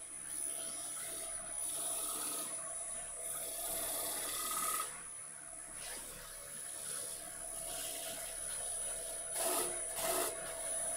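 Wood lathe running, with a steady high whine, while the spinning wooden plate is worked. A rasping scrape swells and fades in waves, with two sharper scrapes about nine and ten seconds in.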